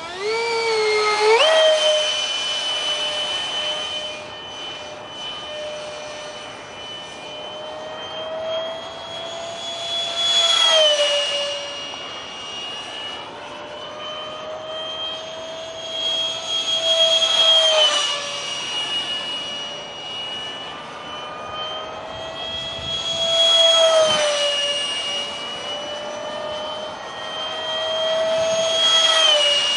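Whine of a 70 mm electric ducted fan (Detrum combo) on an RC foam jet in flight. It spools up in the first couple of seconds, then grows louder and drops in pitch four times as the jet makes passes.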